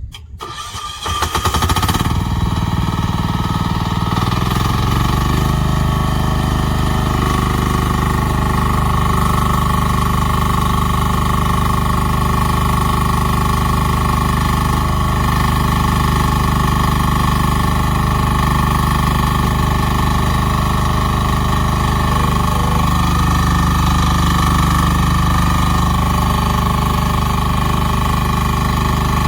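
Rhinoceros Windstorm XN10 mini excavator's engine cranking and catching within the first two seconds, then running steadily.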